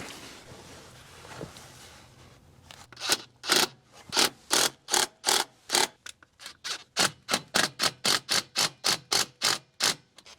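A hose clamp being worked with a hand tool: a quiet start, then a rapid run of sharp scraping clicks, about three or four a second, from about three seconds in.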